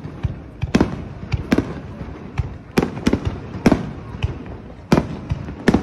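Aerial fireworks display: shells bursting in a rapid, uneven series of about eight sharp booms, over a continuous low rumble of echoing bangs.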